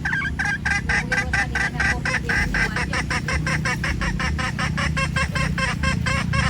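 Geese honking in a rapid run of calls, about five a second, over a low steady rumble.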